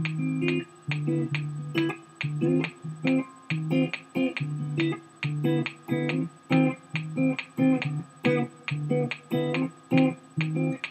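Electric guitar played in a repeating riff of short, clipped picked notes and chords, several to the second, broken by brief gaps.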